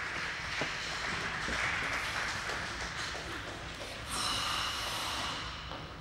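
Ice skate blades hissing and scraping across the ice as the skater glides, with a louder, brighter scrape about four seconds in.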